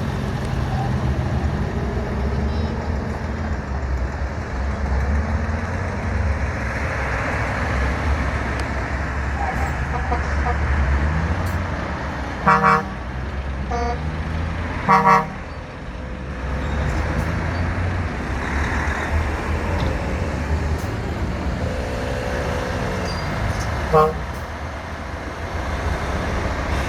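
Heavy trucks rolling past in a convoy with a steady low engine rumble, broken by short blasts of truck air horns: one about halfway through, a double toot a couple of seconds later, and one more near the end.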